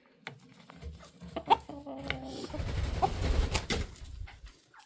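Chickens making a low, short clucking call, amid scattered taps and clicks, with a low rumbling noise for about two seconds in the middle.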